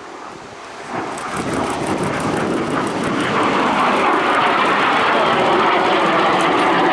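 MiG-17 jet's VK-1F turbojet with afterburner lit, a rushing jet noise that swells from about a second in as the aircraft runs in and then holds loud and steady.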